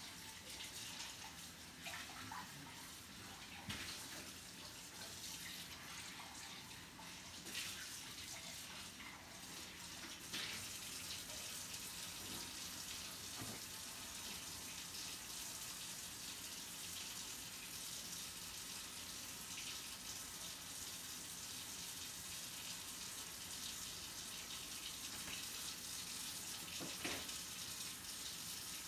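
Mushrooms and garlic sizzling in a skillet: a steady frying hiss, with a few sharp clicks in the first ten seconds and one near the end.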